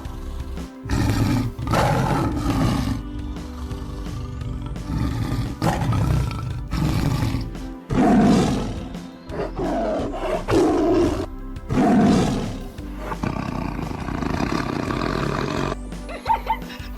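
A tiger roaring and growling in a series of calls, each a second or so long, over background music.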